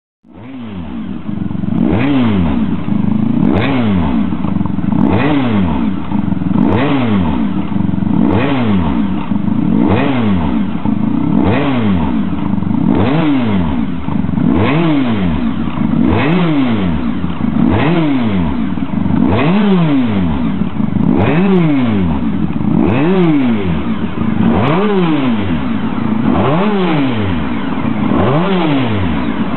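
Honda NR750's 750cc oval-piston V4 engine being revved on a stationary bike. The throttle is blipped over and over, about once every second and a half, each rev rising and falling back.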